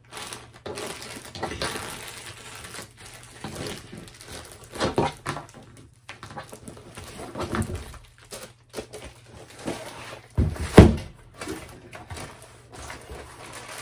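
Handling noises from a rolled diamond painting canvas in its plastic sleeve, with crinkling plastic and a few soft knocks, then one loud thump near the end.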